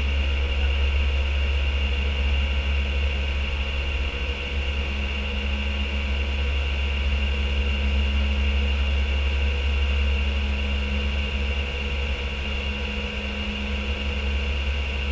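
Steady flight-deck noise of an Airbus A319 climbing after takeoff: a deep, even drone of airflow and engines, with a thin steady high whine over it.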